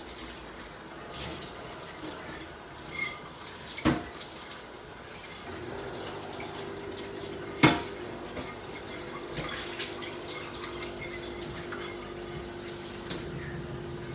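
Pots on the stove simmering and boiling, with two sharp knocks of kitchenware, the second louder, and a steady hum that comes in about halfway.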